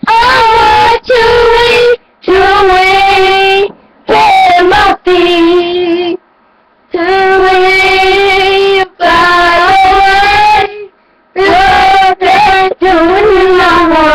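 A boy singing loudly in long held, wavering notes, phrase after phrase with short breaks between them, loud enough to overload the microphone.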